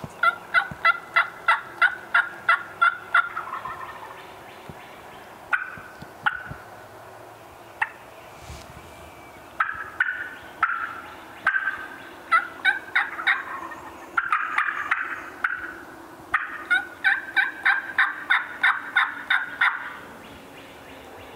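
Wild turkey calling: two loud, even runs of hen yelps, about a dozen notes each at four or five a second, one at the start and one near the end, with quieter turkey gobbles in between.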